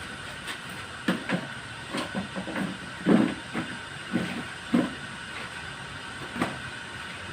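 Repaired electric water heater heating water towards the boil: a steady hiss with irregular pops and knocks from the water, a sign that it is hot and nearing the boil.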